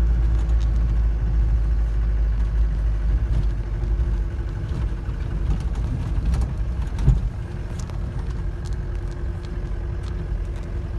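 Car driving slowly on a snow-covered road, heard from inside the cabin: a steady low engine and road rumble. A single knock about seven seconds in, after which the rumble is a little quieter.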